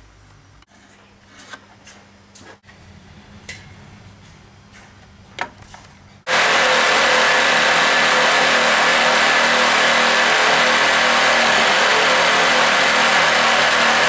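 Ryobi electric jigsaw cutting a bamboo click-lock floorboard to fit around a wall, a loud steady run that starts abruptly about six seconds in.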